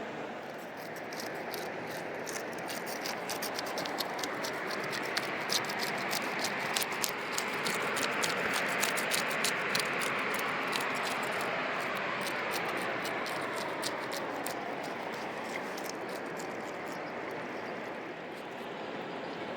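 Flowing river water, rising and easing again, with a rapid run of light crackling clicks over the middle part.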